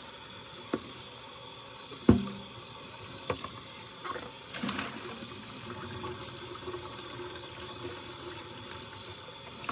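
Kitchen tap running into a sink during hand dishwashing, with several clinks and clanks of dishes and utensils against each other and the sink; the loudest knock comes about two seconds in and rings briefly.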